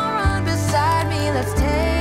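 Background pop song: a melody line gliding over a steady bass and drum beat.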